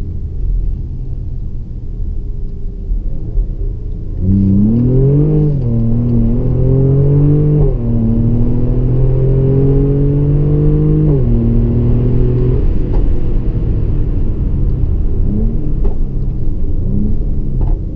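Mercedes-AMG GLE 43's twin-turbo V6 cruising low, then accelerating hard about four seconds in. The engine note climbs and drops sharply three times as the gearbox upshifts. After the car eases off, there are two short rises in engine note near the end.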